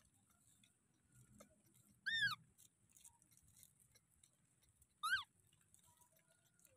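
A baby macaque gives two short, high-pitched coo calls about three seconds apart: the first rises and falls, the second slides downward.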